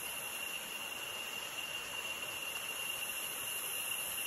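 Tropical forest insects calling in a steady, unbroken high-pitched chorus, with a second, lower steady tone running beneath it.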